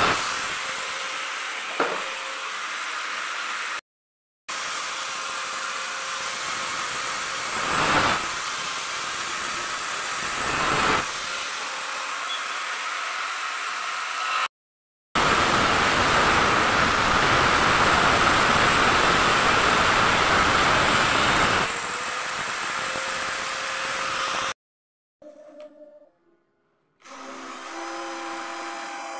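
Hand-held angle grinder with a sanding disc grinding the edge of an aluminium door frame: a loud, steady whine, cut off by short gaps and louder for several seconds past the middle. Near the end, a quieter whir of a cordless drill boring a screw hole for a door hinge.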